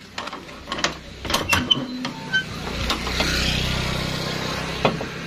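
Several sharp knocks and clicks, then a motor vehicle running close by, swelling about three seconds in and easing off slowly.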